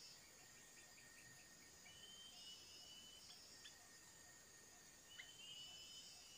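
Faint insect chorus with a steady high buzz. Over it, a bird's short two-part whistled call sounds twice, and a quick run of about half a dozen short chirps comes near the start.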